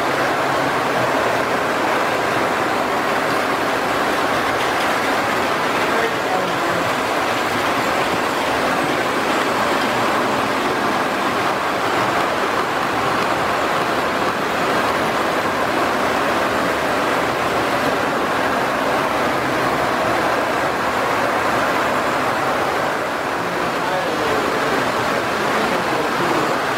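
Steady, even rumble of Lionel O-gauge model trains running on three-rail tubular metal track, with voices of people chatting mixed in.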